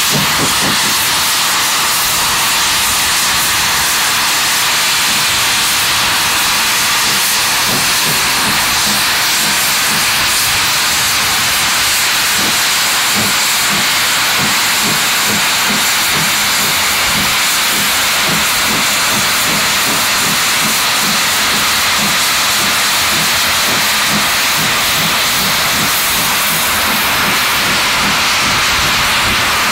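LSWR T3 4-4-0 steam locomotive hissing loudly and steadily as steam blows from its open cylinder drain cocks while it draws slowly ahead. Soft, regular low beats sound under the hiss through the middle stretch.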